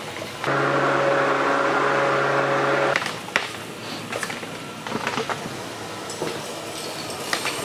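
Small electric motor of a powered push sweeper running with a steady hum, cutting off abruptly about three seconds in. After that come scattered clicks and rattles as the sweeper is pushed over scraps of wood and debris on a concrete floor.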